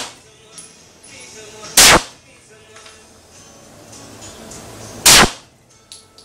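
A 9mm Glock pistol fires two shots, about three seconds apart.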